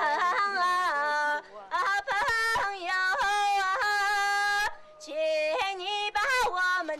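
A woman singing a traditional welcome song unaccompanied, holding long high notes with quick ornamental turns between them and pausing briefly for breath twice.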